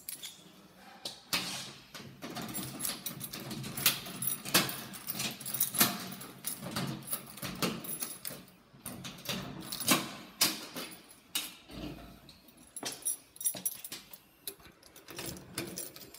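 Keys jangling and clicking in the lock of a metal security door as it is unlocked: a string of sharp metallic clicks and rattles.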